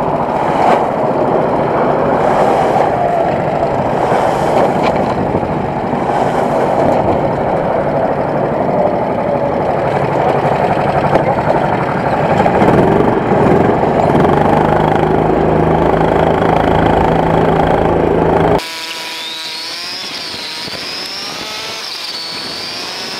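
Rental go-kart engines running in the pits, a loud, steady mechanical rattle. Near the end the sound cuts abruptly to a quieter, smoother kart engine note that rises and falls in pitch with the throttle.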